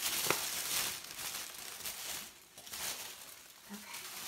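Paper packing rustling and crinkling as a cardboard shipping box is rummaged through, busiest in the first two seconds and then quieter.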